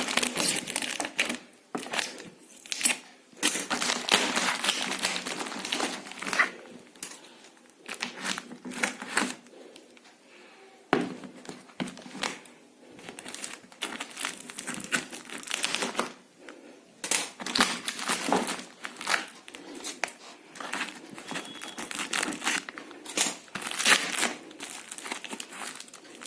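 Packaging being unwrapped by hand: irregular crinkling and rustling with some tearing, in uneven bursts, as a parcel is unboxed.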